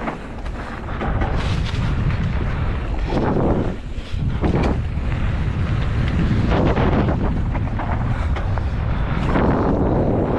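Mountain bike descending a loose, dusty dirt trail at speed: wind buffeting the microphone over the rumble of the tyres, with irregular knocks and clatter from the bike jolting over bumps.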